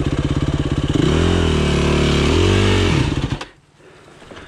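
Yamaha dirt bike engine running at low revs, revved up and down twice, then cutting out abruptly near the end.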